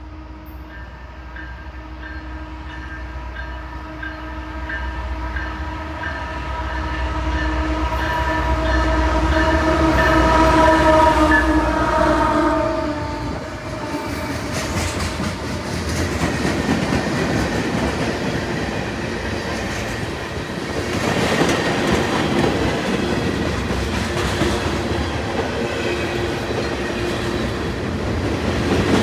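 Freight locomotive's multi-chime air horn held in one long blast as the train approaches, dipping slightly in pitch as it passes and stopping about 13 seconds in. Then the loud rumble of the passing locomotives and freight cars, with wheels clattering over rail joints.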